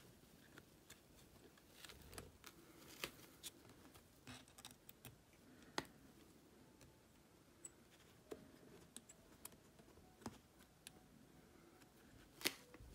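Near silence with faint, scattered small metal clicks as a small Allen wrench turns a screw back into an air pistol's barrel housing and the pistol is handled. The sharpest tick comes near the end.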